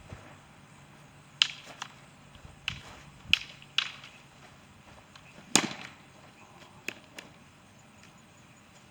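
Practice swords or sticks clacking together in a fencing exchange: about eight sharp, irregular hits over some six seconds, the loudest about a second and a half, three and a half, and five and a half seconds in.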